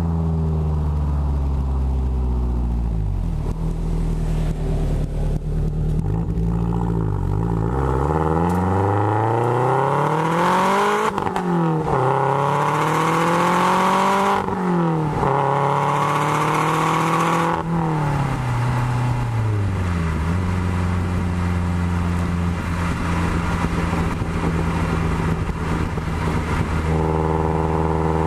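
2013 Subaru WRX turbocharged flat-four running through a Maddad turboback exhaust with Killer B equal-length headers, heard right at the tailpipes. The note falls away at first. About eight seconds in, the revs climb under acceleration, broken by quick dips in pitch at the gear changes. After the revs fall back, the engine settles into a steady note.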